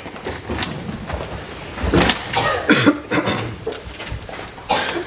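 Irregular knocks, thumps and shuffling of people moving about and sitting down, loudest about two seconds in and again near the end.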